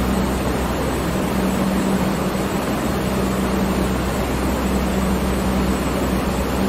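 Electric fan running steadily: a constant rush of air with a low motor hum underneath.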